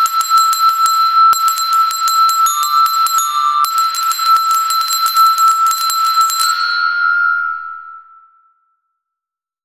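Bell-like ringing: a steady high ringing tone under a rapid run of sharp metallic tinkling strikes. The strikes stop about six and a half seconds in, and the ringing fades away over the next two seconds.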